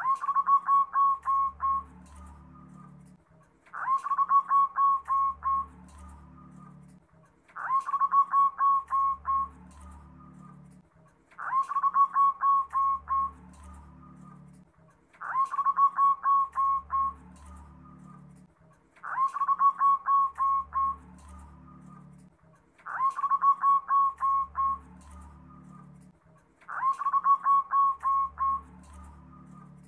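Zebra dove (perkutut) singing its cooing song over and over, at regular intervals of just under four seconds. Each phrase is a quick run of about seven or eight short staccato notes lasting a second or two.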